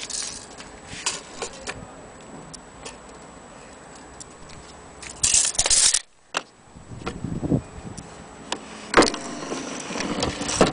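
Old Black Forest cuckoo clock being handled: irregular clicks, knocks and light metallic jangling, with a louder rattling burst about five seconds in and a sharp click about nine seconds in.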